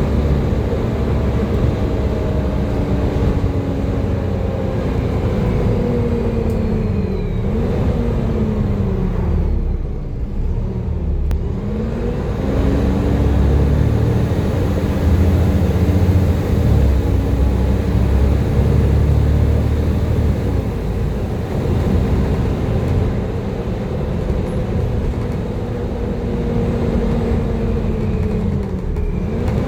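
Volvo B7TL double-decker bus running, its deep engine note overlaid by a hoover-like whine. The whine falls away as the bus slows about seven to ten seconds in, climbs again as it pulls away, and dips and rises once more near the end.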